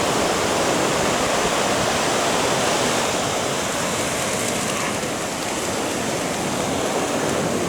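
Atlantic surf breaking and washing up the beach: a steady rush of water that dips slightly about two thirds of the way through.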